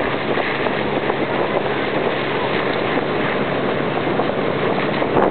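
A motorboat's engine running steadily at speed, with wind buffeting the microphone.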